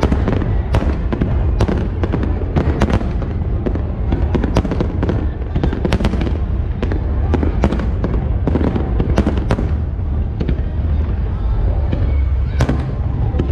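Fireworks display: aerial shells bursting in quick, irregular succession, sharp bangs several a second over a continuous low rumble.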